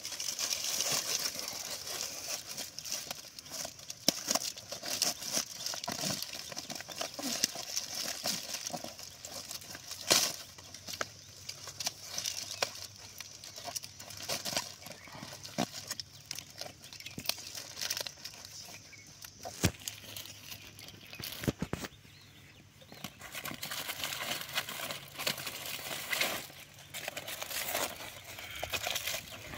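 Aluminium foil crinkling and rustling as a foil-wrapped parcel is handled and tied up, with scattered sharp clicks; the loudest click is about ten seconds in.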